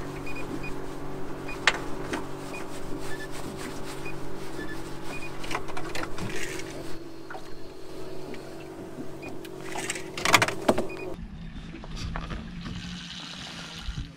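A boat's motor humming steadily, with scattered clicks and knocks of fishing tackle and a louder clatter about ten seconds in. The hum cuts off abruptly about eleven seconds in, leaving a quieter hiss.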